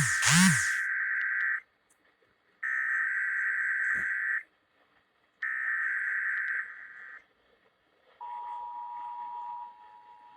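Emergency Alert System test signal: two short, loud swooping chirps, then the three screeching data bursts of the SAME header, each well over a second long with about a second of silence between. About eight seconds in, the steady two-tone EAS attention signal (853 and 960 Hz) begins, and it drops in loudness a second and a half later.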